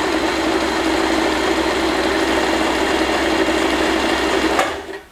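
W6 Wertarbeit N1615 domestic electric sewing machine running steadily, sewing a honeycomb stretch stitch. It stops suddenly with a click near the end.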